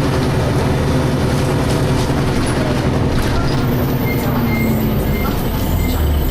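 DAF SB220 single-decker bus's diesel engine heard from inside the saloon, running steadily under way with the whooshing 'hoovering' sound. A faint, regularly repeated high beep comes in about two-thirds of the way through.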